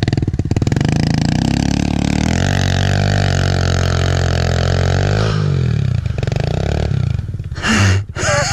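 Kawasaki KLX pit bike's single-cylinder four-stroke engine revving up, its pitch climbing over the first two seconds and held high, then dropping back to a lower, steadier run about five seconds in.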